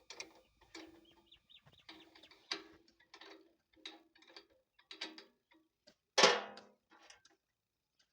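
Irregular mechanical clicks and ticks of hand tools working on a tractor's starter motor, with one loud knock about six seconds in.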